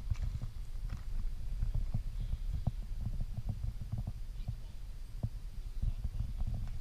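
Wind rumbling on an action camera's microphone, with light irregular knocks as the camera is carried and set down on the dirt.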